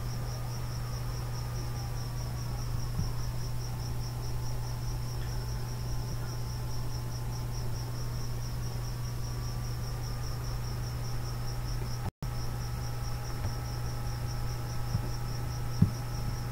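Steady background noise: a low hum under a fast, evenly pulsing high chirping that carries on throughout, broken by a brief dropout about twelve seconds in. A single faint click comes near the end.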